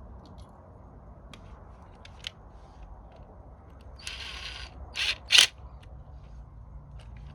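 Hand work on fuel line parts: a few light clicks, a short rasp about four seconds in, then two louder sharp strokes about half a second apart.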